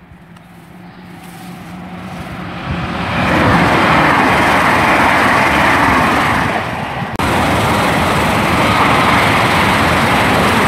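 Great Western Railway Class 800 train passing through the station at speed close by: a rush of wheel and air noise that builds over about three seconds and then holds loud and steady. The noise dips briefly about seven seconds in and then comes back just as loud.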